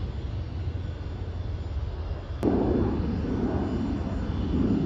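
Low, steady engine rumble of a Gulfstream 100 business jet holding on the runway before takeoff. About halfway through, a louder rushing noise starts suddenly with a click.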